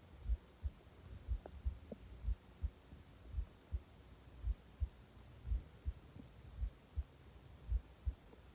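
Heartbeat pulse heard through the body as low, short thumps, mostly in pairs about once a second, over a steady low hum. A faint brief stomach gurgle comes about one and a half seconds in.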